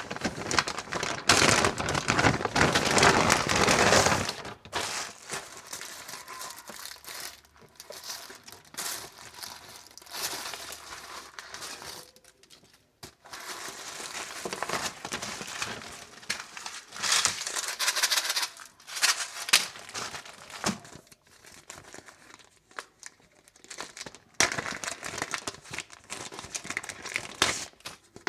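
Packaging being handled and unwrapped, crinkling and rustling in irregular bursts, with the loudest handling in the first few seconds and again around the middle and near the end.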